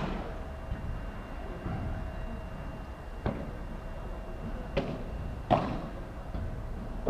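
Padel ball being struck by rackets and bouncing during a rally: a handful of sharp, separate knocks a second or so apart, the loudest about five and a half seconds in, over a steady background hum.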